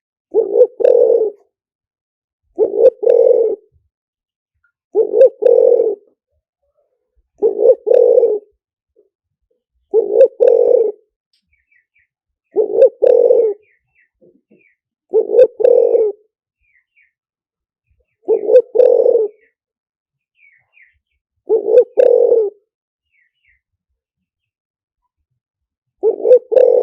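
Spotted dove cooing: a phrase of two or three low coos about every two and a half seconds, with a longer pause near the end. Faint high chirps of small birds come between the phrases around the middle.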